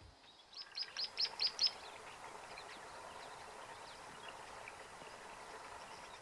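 A bird calls a quick run of six short, high notes, each dropping in pitch, at about five a second. A steady outdoor hiss follows, with a few faint chirps.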